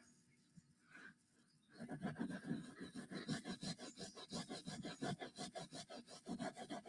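A Norwex cloth being scrubbed hard over carpet pile in quick back-and-forth strokes, a rhythmic scratchy rubbing that starts about two seconds in.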